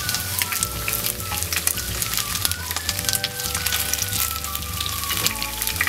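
Hot oil sizzling and crackling steadily as cornflour-coated chicken pieces shallow-fry in a pan.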